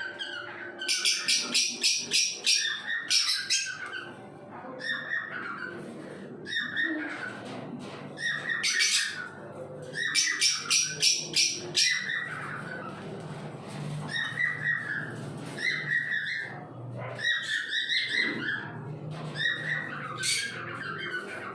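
Sun conure calling: runs of rapid, shrill squawks, several a second, with softer chattering calls between.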